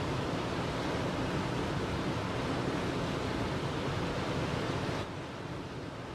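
Steady rushing of river water, a dense even noise that steps down in level about five seconds in.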